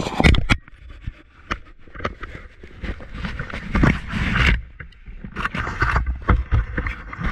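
Handling noise on a body-worn camera: clothing and gear rustling and scraping over the microphone, with scattered knocks and thumps as a firefighter climbs into a fire engine's cab.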